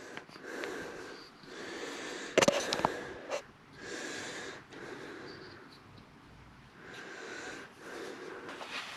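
A person breathing close to the microphone, a soft breath every second or so. About two and a half seconds in, a short clatter of small turned wooden parts knocking together.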